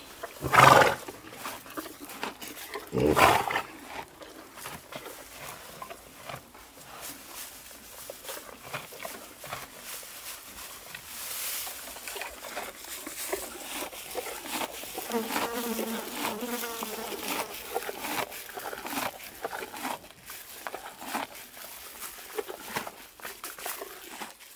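Horses in a pasture: two loud snorts in the first few seconds, then flies buzzing and the steady clicking and tearing of grazing, with a low wavering call around the middle.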